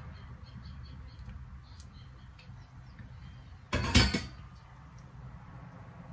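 Kitchen handling noise over a low steady hum: a few faint small clinks, then a short loud knock or clatter about four seconds in as the kettle and mate gourd are handled.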